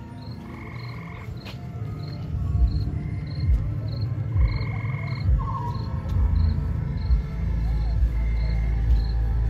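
Night-insect and frog chorus from the trail's ambient soundtrack: a high chirp repeats about twice a second, with longer trills every few seconds. Low thumps come from about two seconds in, and a deep rumble grows from about seven seconds in.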